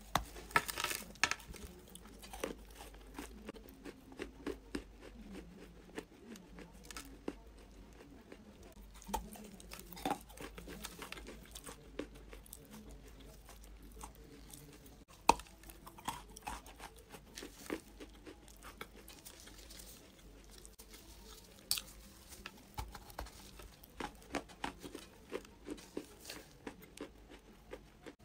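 Close-up biting and chewing of a block of reddish-brown eating clay: repeated crisp crunches and crumbly crackles as pieces break off in the mouth, with one sharp crack about halfway through.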